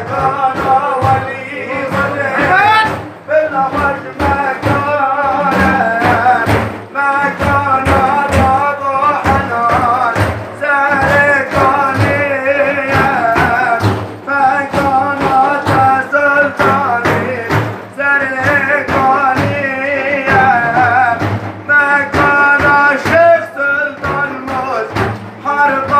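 Male voice singing a Sufi devotional chant (ilahi) in long wavering, ornamented lines over regular drum beats.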